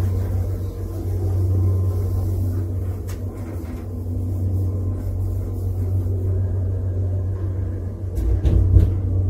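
Lift car travelling up, a steady low rumble of the ride, with a few faint clicks and then several knocks near the end as it reaches the next floor.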